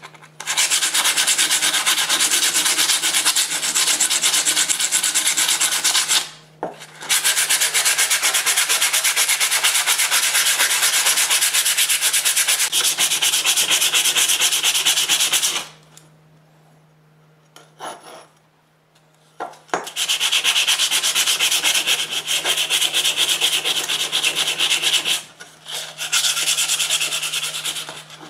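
Sandpaper rubbed rapidly back and forth by hand over the rusty steel blade of an old shipwright's caulking iron, a fast dry scratching. It stops briefly about six seconds in, pauses for about four seconds midway, then resumes.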